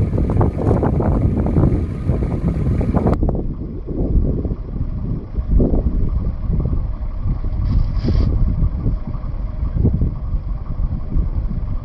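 Wind buffeting the microphone: a loud, gusty rumble that rises and falls irregularly.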